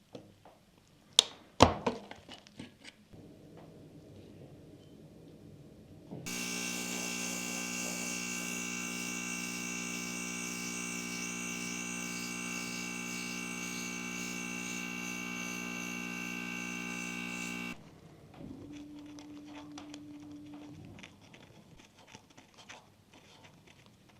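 A small electric motor, such as a hobby tool's, runs at a steady speed for about eleven seconds. It is preceded by a few sharp clicks and knocks, and a short low hum follows shortly after it stops.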